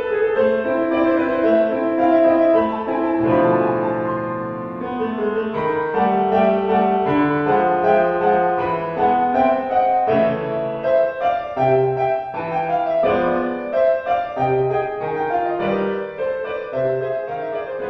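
Background piano music: a gentle melody of single notes over a slow bass line, fading out near the end.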